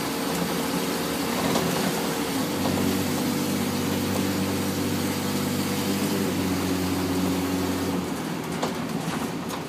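Truck engine and road noise heard from inside the cab while driving, a steady drone; a deeper, stronger engine tone comes in about two and a half seconds in and drops away near the end.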